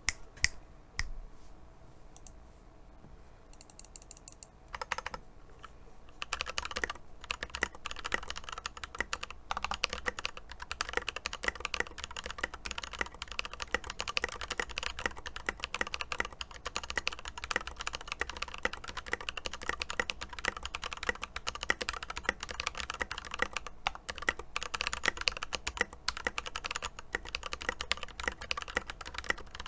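Mechanical keyboard being typed on: an Epomaker EP84 with lubed Glorious Panda tactile switches and Tai-hao keycaps. A few scattered keystrokes come first, then steady, continuous typing from about six seconds in.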